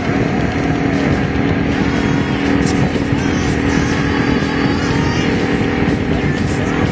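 Honda V-Twin Magna 250 motorcycle's V-twin engine running steadily under way, with a continuous low rumble.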